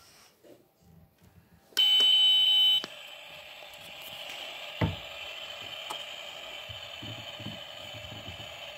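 Toy kitchen's electronic stove switched on: a loud beep tone lasting about a second, then a steady hissing cooking sound effect from its speaker, with a single click about five seconds in.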